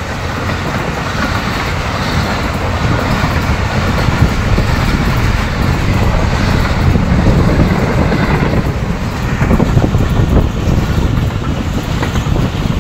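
Passenger coaches of an express train running past at speed close by: a steady, loud noise of wheels on the rails and rolling stock that carries on without a break.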